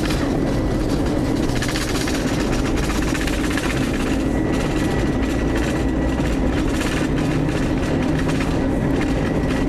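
Airbus A321 cabin noise on the ground: steady jet engine noise, with the landing gear rumbling and knocking over the pavement.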